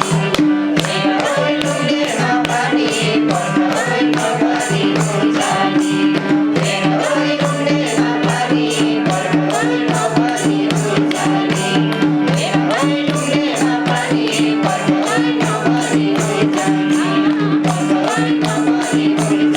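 Instrumental Nepali folk dohori music: a steady percussion and shaker beat over a held drone, with a melody line running above.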